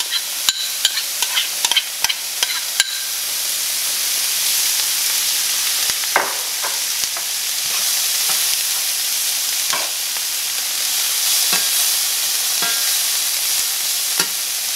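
Diced onion and red bell pepper sizzling steadily in cast iron skillets. Quick clicks and taps in the first few seconds as the pepper goes into the pans, then a spoon scrapes and knocks against the skillet now and then as the vegetables are stirred.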